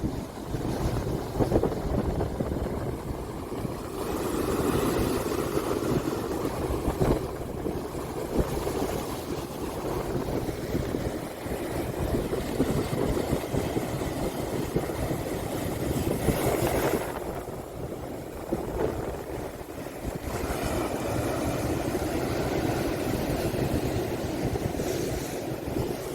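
Wind buffeting the microphone over the wash of sea waves, swelling and easing every few seconds.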